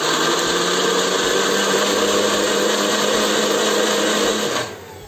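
Electric blender running at a steady speed, puréeing chillies, shallots, garlic and ginger with water into a wet spice paste. The motor cuts off about four and a half seconds in.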